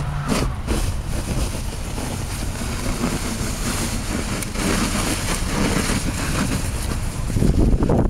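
Wind buffeting the microphone with a steady rumble, over the scrape and swish of a plastic snow shovel being pushed through snow on pavement.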